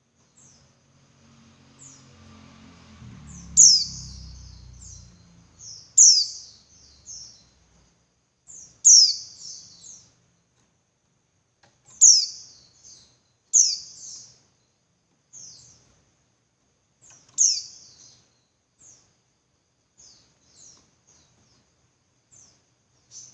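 Female white-eye (pleci) giving its calling-the-male call: short, high, downward-sliding chirps. The loudest come every two to three seconds, each followed by a few softer notes, and they grow fainter towards the end. A low rumble sounds under the first few seconds.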